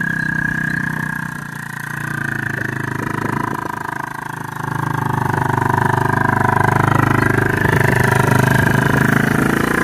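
Suzuki quad bike engine running as it tows a fertiliser spreader over rough hillside ground. It grows louder from about halfway as the quad comes close.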